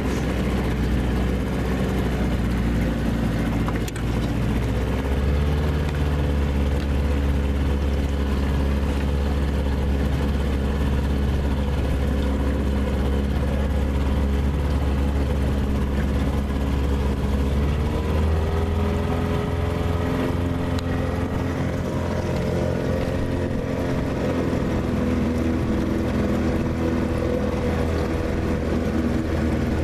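Small boat's outboard motor running steadily under way, its pitch rising a little about five seconds in and again at about eighteen seconds.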